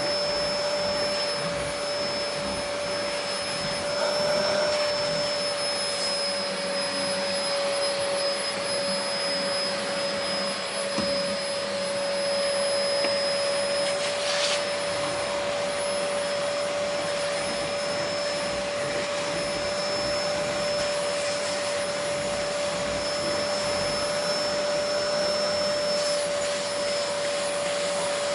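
Vacuum cleaner running steadily: an even rushing hiss with a constant motor whine.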